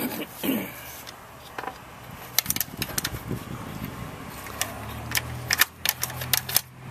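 Light metallic clicks and rattles as a Festool UG-Kapex stand's wing bracket is pushed into its V-groove and its clamping knob is turned by hand. A low steady hum comes in about halfway through.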